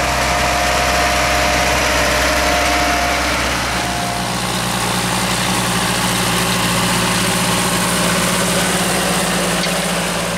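Tractor diesel engine running steadily with a low hum; its note shifts about four seconds in.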